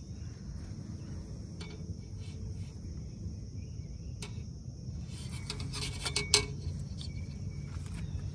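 Steady insect chorus, with scattered clicks and light rattles from the fishing rod and reel being worked, thickening into a cluster of louder clicks about five to six and a half seconds in.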